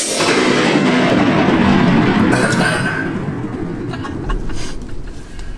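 A shot wild turkey gobbler flopping on the ground, its wings beating heavily for about three seconds, then easing off with a few scattered knocks.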